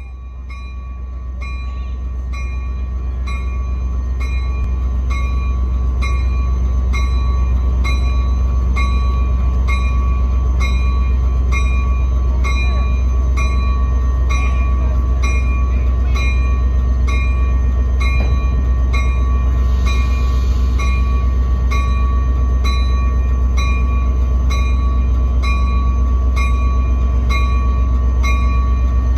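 Diesel locomotive engine rumbling as the locomotive creeps forward, growing louder over the first few seconds, while its bell rings steadily about once a second.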